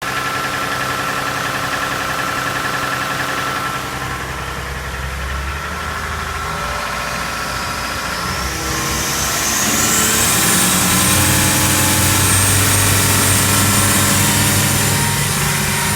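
4.2-litre turbodiesel boat engine running after an injection pump repair; about nine seconds in the revs pick up, with a rising high whine as it speeds up.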